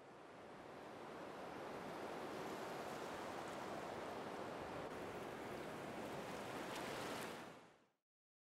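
Soft, steady wash of sea ambience, like gentle surf or lapping water. It fades in over the first couple of seconds and fades out near the end.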